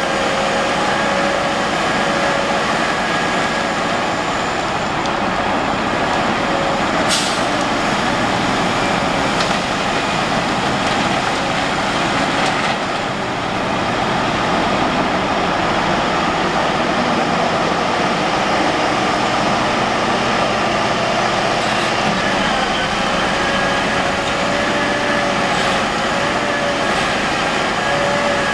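CAT 5130 mining excavator's diesel engine running steadily under load through a dig-and-swing cycle, with two steady whining tones over the engine noise. A brief hiss of air comes about seven seconds in.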